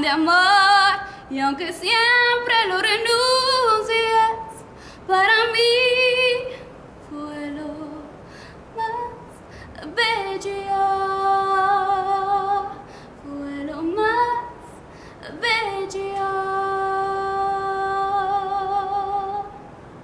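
A girl singing solo without accompaniment: quick, sweeping vocal runs over the first several seconds, then two long held notes with vibrato, the second ending just before the close.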